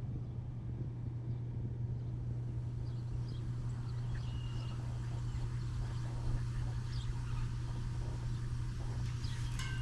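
A steady low hum with faint, scattered high bird chirps over it.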